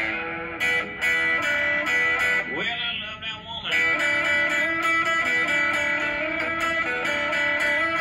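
Stratocaster-style electric guitar playing a repetitive blues riff, with picked notes over a held note and a quick rising pitch glide a little past two and a half seconds in.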